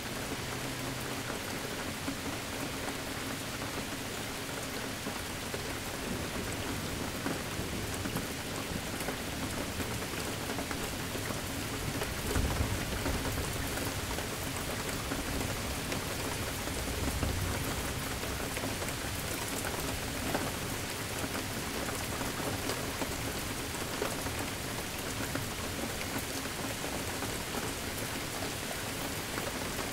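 Steady rain falling, with two low rumbles of thunder swelling up briefly around the middle.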